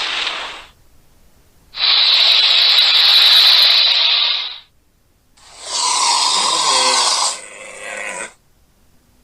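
Cryolophosaurus sound-effect calls: a call cuts off just after the start, then two harsh calls about three seconds each. The first is high and hissing, the second lower, with a held tone and a growling undertone, fading near its end.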